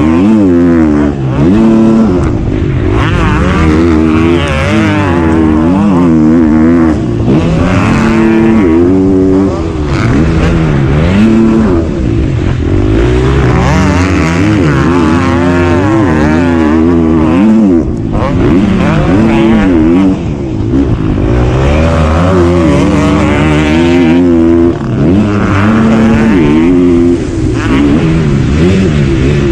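Motocross bike engine heard close up from the bike itself, revving up and dropping back again and again as the throttle is opened and closed through corners and jumps.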